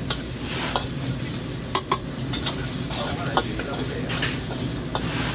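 Food sizzling in a hot wok while a spatula stirs and scrapes it, with scattered sharp clanks of the spatula on the wok, two loud ones close together a little under two seconds in.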